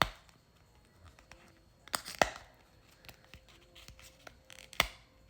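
Packaging on a boxed card deck being handled and torn open: a few sharp crackles and snaps, the loudest about two seconds in and another near the end, with faint rustling between.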